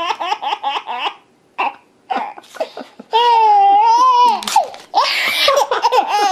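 Baby laughing hard in quick, rhythmic bursts, then a long high-pitched squeal of laughter about three seconds in. Paper is torn near the end, a short rough ripping noise.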